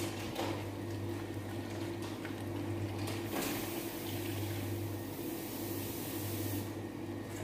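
Thin tomato sauce poured from a metal bowl into a cooking pot, a steady liquid pouring sound, over a constant low hum.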